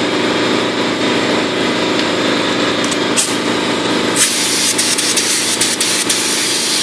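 Compressed-air gravity-feed paint spray gun hissing as paint is sprayed; about four seconds in the hiss turns brighter and stronger, with a few short spurts after it, over a steady background hum.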